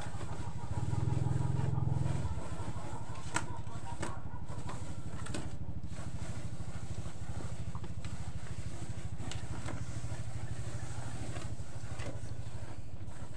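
A small engine running steadily at a low idle, its drone swelling about a second in and again from about seven seconds, with a few light clicks, the sharpest about three seconds in.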